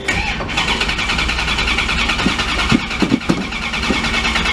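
The 1963 Chrysler New Yorker's 413 V8 engine starts suddenly right at the beginning and then keeps running steadily.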